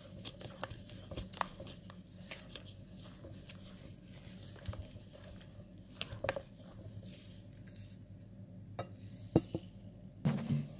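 Liquid egg, sugar and oil batter being stirred by hand in a bowl: soft sloshing with scattered light clicks of the utensil against the bowl, and a sharper knock near the end.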